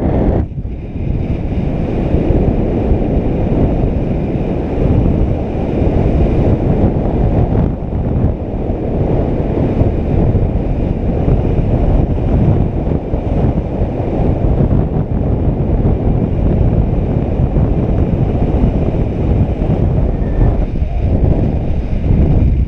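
Airflow rushing over a paraglider pilot's GoPro microphone in flight: loud, steady wind noise, heaviest in the low range, with brief dips.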